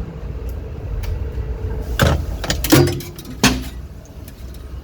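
Payphone handset and switch hook being handled, giving several sharp clunks and rattles about two seconds in and again around three and a half seconds, over a steady low rumble of city street traffic.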